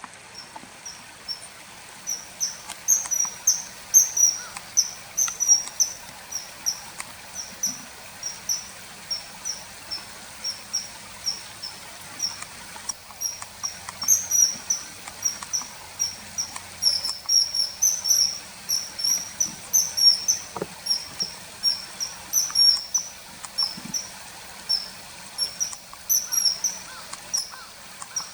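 Small birds chirping: a steady run of short, high-pitched chirps, several a second, over a faint background hiss.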